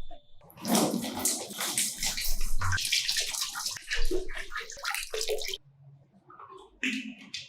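Water running and splashing hard, which cuts off sharply about five and a half seconds in.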